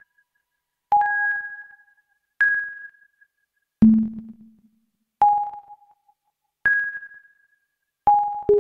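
Sparse electronic music made on an iPad app: single synthesized notes that start sharply and fade within about a second, one roughly every second and a half. The notes sit at a few different pitches, with one much lower note about four seconds in and two quick notes near the end.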